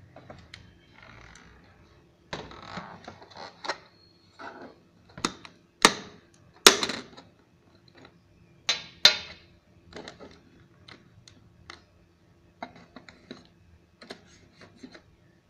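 Plastic clicks and knocks from handling a quartz wall clock: it is turned over, and fingers work at the battery compartment of the black plastic movement on its back. A few sharp clicks stand out around the middle, with lighter taps after.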